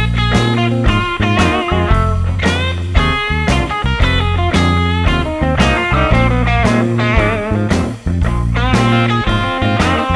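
Rock music led by a guitar playing bent notes, over bass and drums.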